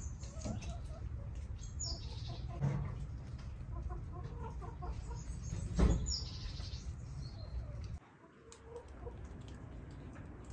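Hens clucking over a steady low outdoor rumble, with one sharp thud about six seconds in; the rumble drops away about two seconds later.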